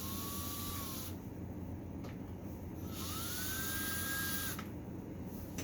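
Small cordless power screwdriver with a Phillips bit running in two short bursts, its motor whining. The first burst stops about a second in, and the second climbs in pitch as it spins up. It is backing out screws on an ATV carburetor and intake manifold.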